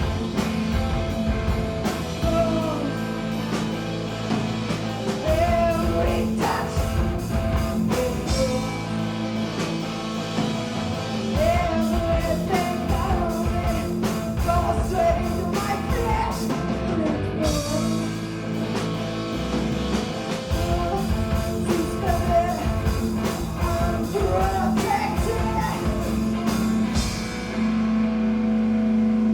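Punk rock band playing live: electric guitar, bass and drum kit with sung vocals. Near the end the drums stop and a chord is held ringing.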